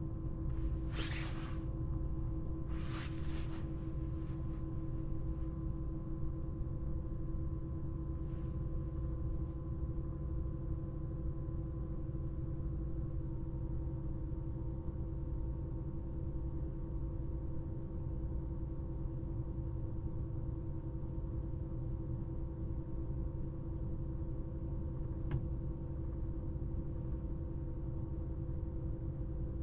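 Steady low road and tyre rumble inside a Tesla's cabin while driving, with faint steady hums over it. Two short swishes come in the first few seconds.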